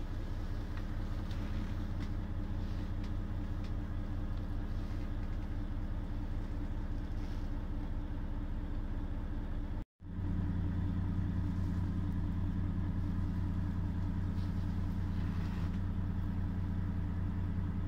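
Volvo FMX 460's 13-litre inline-six diesel idling steadily, heard inside the truck's cab as a low hum. The sound cuts out for a moment about halfway through and comes back slightly louder.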